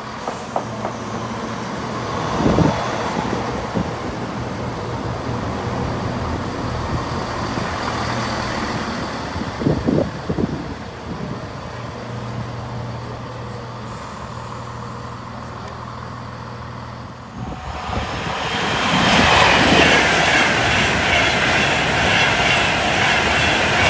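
CrossCountry Class 170 Turbostar diesel multiple unit running into the platform and standing, its underfloor diesel engines humming steadily, with a couple of short thumps. About three-quarters of the way through, this gives way to a louder rushing noise as a Class 390 Pendolino electric train passes through at speed.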